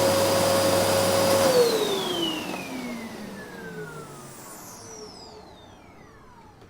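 Vacuum cleaner running steadily with a motor whine, switched off about a second and a half in: the whine falls in pitch and the suction noise fades away as the motor spins down.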